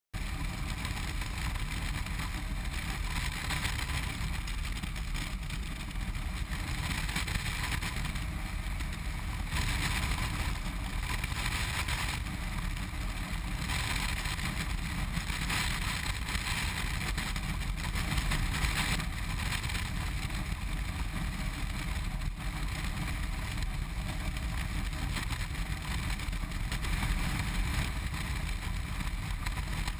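BMW R1200RT motorcycle running at steady motorway speed: a continuous rush of wind over the microphone with the air-cooled boxer twin and tyre noise underneath.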